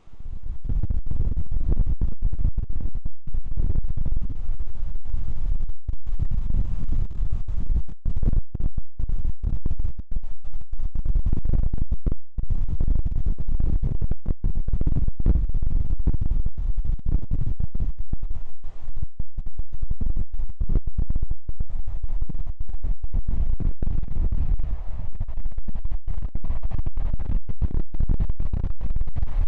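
Strong gusty wind buffeting the microphone: a loud, low rumble that cuts in suddenly at the start and keeps breaking off for split seconds.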